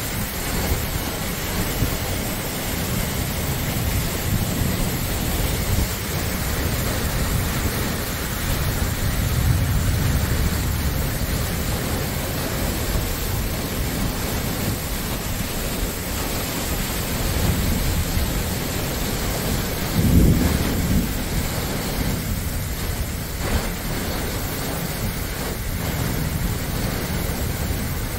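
Heavy rain pouring in a steady loud rush, with strong wind gusting over the microphone. A louder low rumble swells about twenty seconds in.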